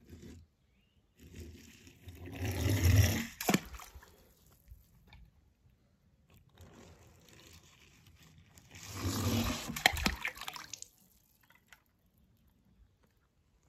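Water splashing in two bursts as small toy cars are dipped and moved through it, with a few sharp clicks of the toys among the splashes.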